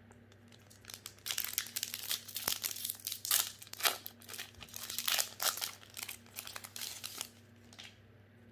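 Foil wrapper of a Magic: The Gathering collector booster pack crinkling as it is torn open by hand. It starts about a second in and stops about a second before the end.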